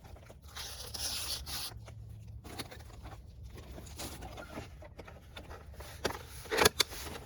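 Plastic parts rubbing and scraping as an aftermarket LED turn signal is worked into a car's side-mirror housing by hand, then a few sharp clicks near the end.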